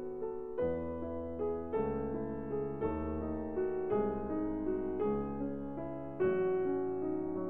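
Background piano music: a slow, gentle piece with new notes or chords struck about once a second and left to ring.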